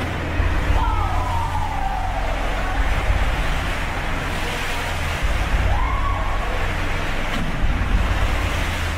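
Pool water on a storm-rolled cruise ship surging and splashing over the pool edge: a steady rushing wash over a deep rumble. Two brief wailing tones cut through, one falling about a second in and one rising and falling near six seconds.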